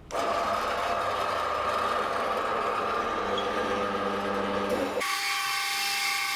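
A 4x6 horizontal metal-cutting bandsaw running, its blade cutting 8 mm steel rod: a steady mechanical whine with a high ringing tone. About five seconds in, the sound changes suddenly to a brighter, more ringing whine.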